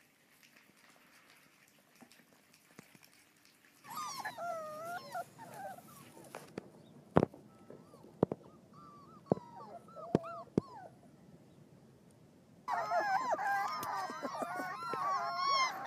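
Four-week-old chocolate Labrador retriever puppies whimpering and yipping: after a faint start, a few high, wavering whines from about four seconds in, broken by several sharp knocks. Near the end, many puppies whine loudly together.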